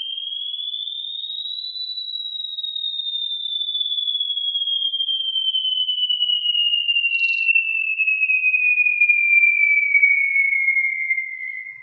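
Emergency alert alarm tone: a single pure electronic tone that glides up in pitch for about two seconds, then slides slowly and steadily down, growing louder as it falls.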